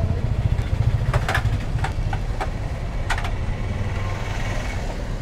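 Steady low rumble of an idling vehicle engine, with a few light clinks of aluminium cake tins being handled and stacked, mostly between about one and three seconds in.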